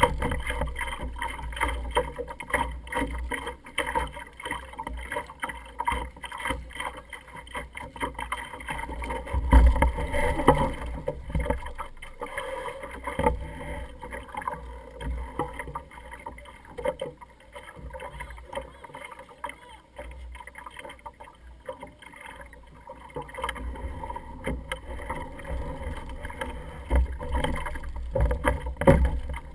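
Small sailing dinghy under way: water splashing and slapping against the hull, with a low wind rumble on the microphone and frequent small knocks from the boat. It is loudest about ten seconds in and again near the end.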